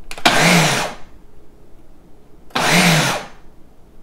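Ninja Auto-iQ blender running a preset program that pulses the blade: two short bursts about two seconds apart, the motor whirring up and dropping away each time as it chops spinach leaves in the jar.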